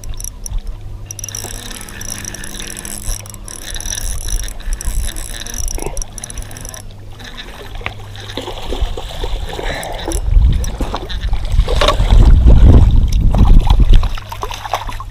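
Fishing reel being cranked as a hooked smallmouth bass is reeled in, then water splashing as the fish is brought to the shore. A loud low rumble on the microphone for about four seconds near the end.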